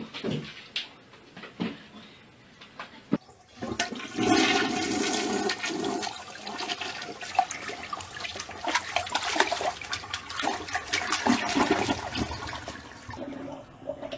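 A toilet flushing: water rushing and swirling down the bowl, starting about three and a half seconds in and running for about nine seconds before fading. A few light knocks come first.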